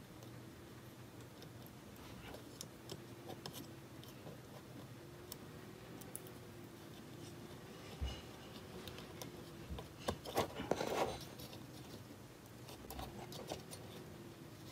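Faint handling sounds of small clicks and scratches as the cooling fan's wire connectors are pushed onto the Raspberry Pi's GPIO header pins, with a short cluster of louder clicks and scraping about ten seconds in.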